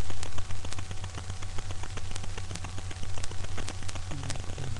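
Two dogs play-wrestling: a dense crackle of quick clicks and scuffling over a steady low hum, with a short low vocal sound near the end.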